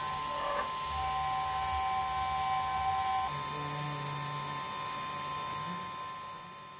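Spindle of a DIY CNC router with a 2.2 kW spindle, spinning a 4 mm carbide end mill at about 9300 rpm on a light finishing pass in steel: a steady electric whine made of several held tones. About three seconds in, the tones shift to a lower set and the sound grows quieter toward the end.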